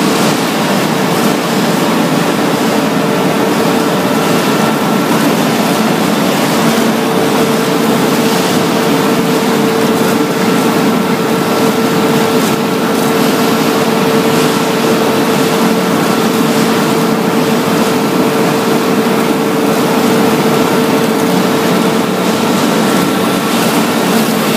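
Dazzini TCI260VH quarry chain saw machine running while it cuts slate: a loud, steady mechanical drone with a constant whine over it.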